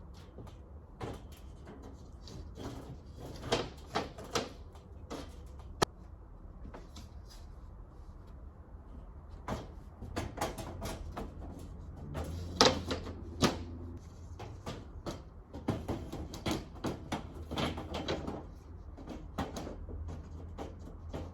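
Irregular knocks, clicks and clatters of rivet shelving parts being handled and fitted together, busier and louder in the second half.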